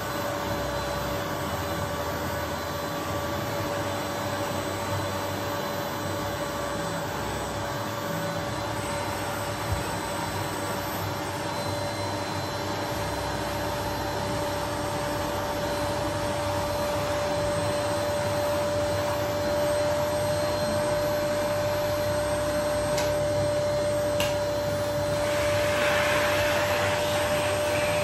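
Vacuum cleaner running steadily with a constant motor whine while its hose nozzle is worked over fabric sofa upholstery. The suction hiss grows brighter and a little louder near the end.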